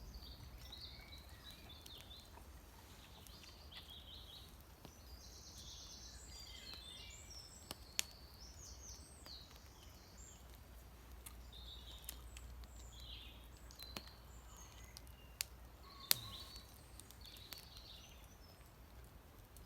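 Small birds singing and chirping repeatedly over a low steady rumble, with two sharp clicks about eight and sixteen seconds in.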